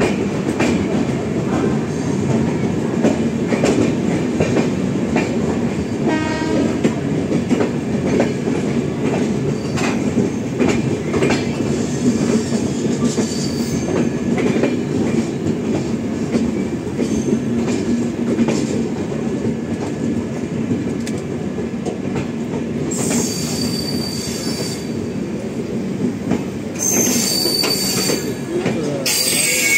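Two passenger trains rolling side by side at low speed: a steady rumble and rattle of coaches, with wheels clicking over rail joints. High-pitched wheel squeal sets in twice near the end.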